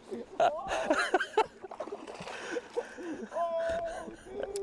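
Indistinct vocal sounds from a person: short exclamations, then a drawn-out held vowel about three seconds in and a brief held note near the end.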